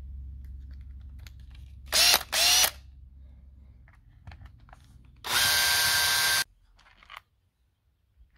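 Cordless drill-driver backing out the housing screws of a cordless drill: two short spin-ups about two seconds in, their whine rising in pitch, then a steadier run of about a second a little after five seconds. A low hum sits under the first half.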